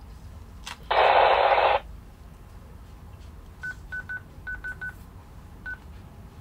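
Baofeng GM-5RH handheld radio giving a loud burst of static hiss from its speaker for just under a second, starting and stopping abruptly. Then come seven short keypad beeps at one pitch, some in quick pairs, with faint button clicks as its keys are pressed.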